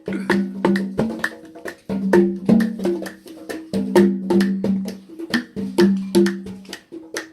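Background music: quick percussion strikes in a steady rhythm over a low repeating instrumental figure.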